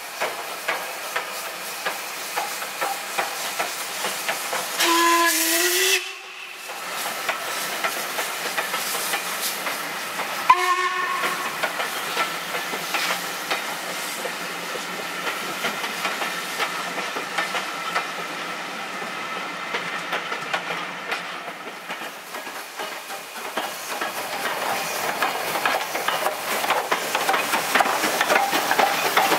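LMS Black 5 steam locomotive working, with steady hissing steam and a rapid run of exhaust beats. Its steam whistle is blown for about a second some five seconds in, then given a short toot about five seconds later. The running sound grows louder near the end as the engine comes close.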